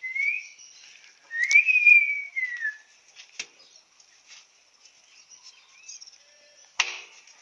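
A person whistles twice to call a dog: a short rising note, then a longer, louder note that rises and falls. A sharp knock comes near the end.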